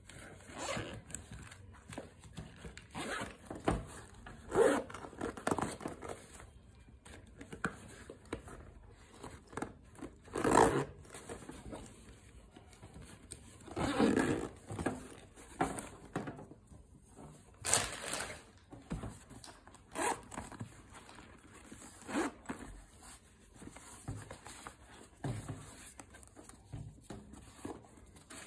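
Metal zippers on sling bags being pulled along in short separate strokes, mixed with rubbing and scraping as the bags are handled.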